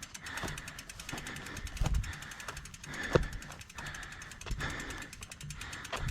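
Heavy mouth breathing, about a breath a second, from someone winded while pushing a mountain bike uphill. Underneath, a fast faint ticking from the bike's freewheeling rear hub, and a couple of sharp knocks from the bike about two and three seconds in.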